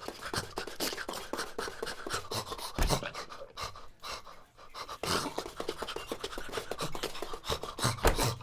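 Rapid, breathy panting mixed with quick scratchy scuffling noises, with heavier thumps about three seconds in and again near the end.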